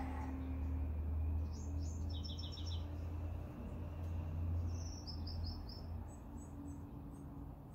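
Small birds chirping in three quick runs of four or five high notes each, over a low steady hum.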